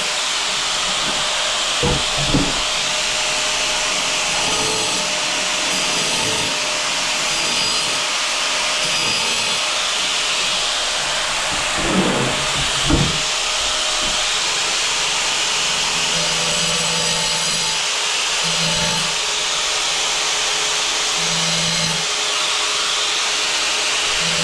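Angle grinder running steadily as it cuts into hard ceramic tile, with a few short knocks about two seconds in and again around twelve to thirteen seconds in.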